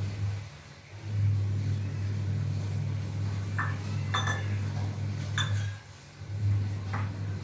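A steady low hum with four short, sharp clinks of hard objects knocking together, spread through the second half.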